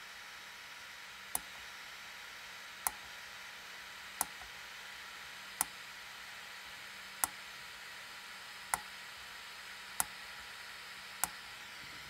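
Eight sharp clicks, about one every second and a half, over a faint steady hiss: the switches of an 8-position DIP switch on a Xilinx ZCU102 board being flipped one at a time with a pen tip, during the board's DIP switch self-test.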